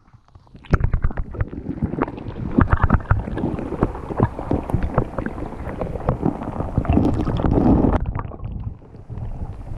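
Muffled underwater sloshing and gurgling with many sharp clicks and knocks, heard from a microphone held under the water while a hand holds and lets go of a bass. The knocking stops and it settles to a quieter murmur about eight seconds in.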